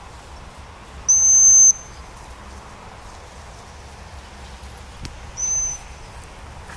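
Two blasts on a high-pitched gundog whistle, each a single steady note. The longer, louder blast comes about a second in; a shorter, quieter one follows about five seconds in.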